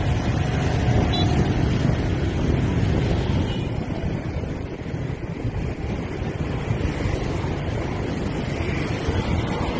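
Wind rumbling on the microphone of a moving bicycle, mixed with the steady hum of motor scooters running all around in street traffic.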